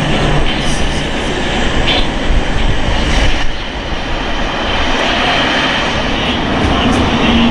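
Boeing F/A-18E/F Super Hornet jet engines (twin GE F414 turbofans) running: a loud, steady rush of jet noise. A low steady tone comes in near the end.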